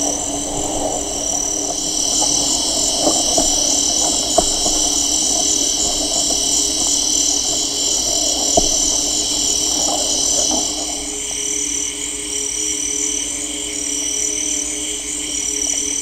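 Amazon rainforest chorus of insects and frogs: several steady, high-pitched insect drones with pulsing calls over low, steady frog calls, with a few sharp clicks. Partway through, the densest high drone stops and gives way to short high pulses repeating about once a second.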